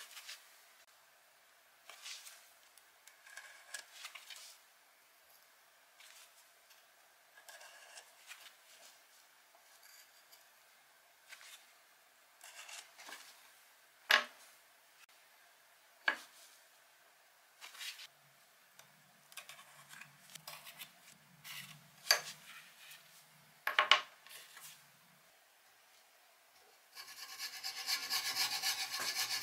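Scattered light scrapes and a few sharp taps on a wooden workbench, then near the end a hacksaw starts cutting a black handle scale clamped in a bench vise, a steady loud rasping of the blade going back and forth.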